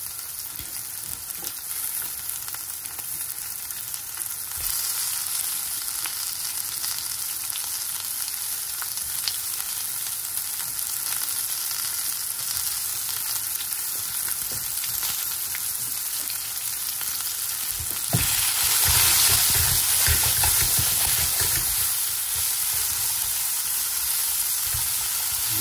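Sliced onions sizzling in hot oil in a steel pan, a steady high hiss. About eighteen seconds in the sizzle grows louder as a spatula stirs the onions around the pan.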